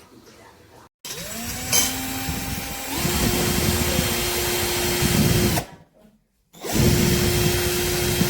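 AVID Power 20V MAX cordless drill/driver running under its trigger. The motor whines up, steps to a higher speed about two seconds in, stops about halfway through, then starts again and holds a steady pitch.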